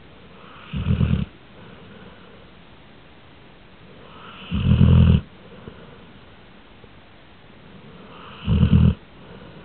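A sleeping pet snoring: three loud, low, rattling snores about four seconds apart, with quieter breathing between them.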